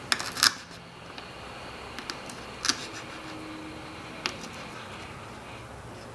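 Miniature knife cutting tiny pieces of meat on a small wooden cutting board: a handful of sharp taps of the blade on the wood, the loudest just after the start, over a faint steady hiss.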